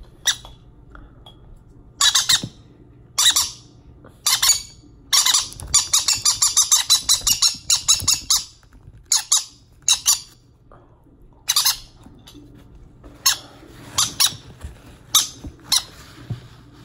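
Baby green-cheeked conure chicks giving harsh, high begging squawks while being syringe-fed: short separate calls, with a quick run of calls between about five and eight and a half seconds in.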